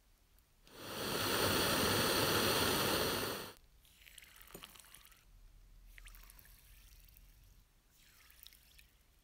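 A loud steady rush of hiss for nearly three seconds, then the fine fizzing and crackling of gas bubbles in an electrolytic de-rusting bath, heard in three short stretches.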